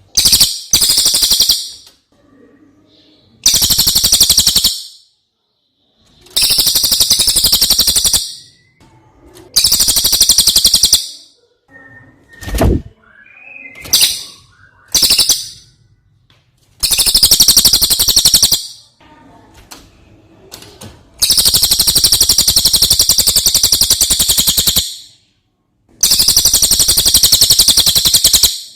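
Brown cililin songbird singing in loud bursts of very fast, high chattering notes, each burst lasting one to two seconds with short pauses between, about eight in all. A single brief knock sounds about halfway through.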